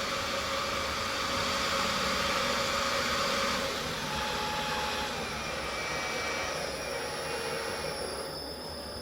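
Metal lathe running under power in its low gear range, a steady motor and gearbox whir. The noise drops in two steps, about a third of the way in and again near the end, as the spindle is turned down to its slowest speed in low range.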